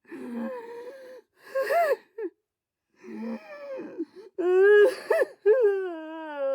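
A person crying dramatically: broken, breathy sobs and sharp gasping breaths, then about five seconds in a long, wavering wail that slides down in pitch.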